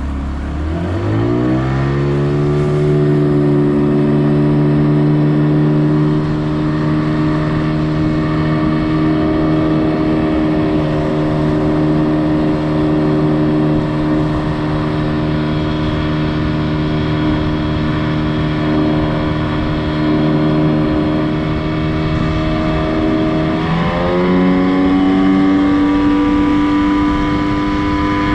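Yamaha 20 hp two-stroke outboard motor revving up from a low speed as the throttle is opened, then running at a steady pitch under way. About 24 seconds in it revs up again to a higher steady speed.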